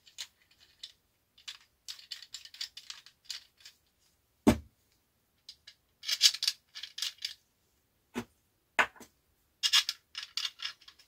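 3D-printed plastic parts clicking and rattling in short bursts as printed bolts are screwed into a stand and frame, with a few sharp knocks. The loudest knock comes about four and a half seconds in.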